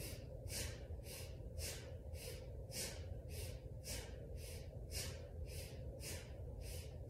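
A woman's rapid, powerful yoga breathing: short forceful breaths in a steady rhythm, nearly two a second, each paired with the leg pumping up and down.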